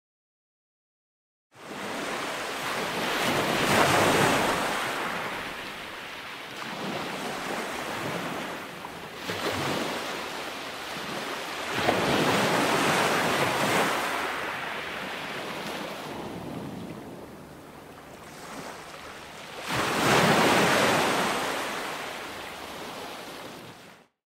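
Ocean surf: waves swelling and breaking in slow surges about every eight seconds. It starts after a short silence about a second and a half in and cuts off just before the end.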